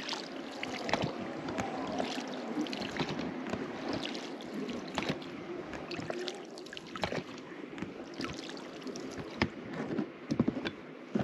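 Oars of an inflatable rubber boat being rowed: water splashing and gurgling at the blades, with irregular knocks and clicks from the oars working in their locks.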